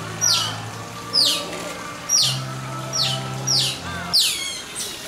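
Asian small-clawed otters chirping: a steady run of high, shrill calls that sweep sharply downward, one or two a second.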